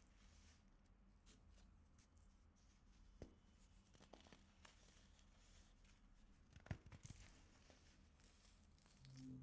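Faint crunching and crumbling of pressed baking soda: scattered small crackles, with a louder cluster about seven seconds in.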